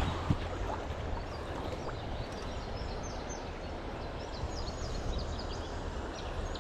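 Steady outdoor noise of a flowing creek with a low rumble underneath, and a few faint, high bird chirps in the middle.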